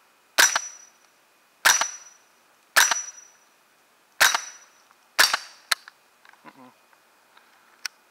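Five semi-automatic shots of subsonic .22 Long Rifle from an AR rifle fitted with a CMMG Bravo .22 LR conversion bolt, fired about one a second, each a sharp crack with a short ringing tail. A lighter click follows just after the fifth shot, and a few faint clicks come near the end.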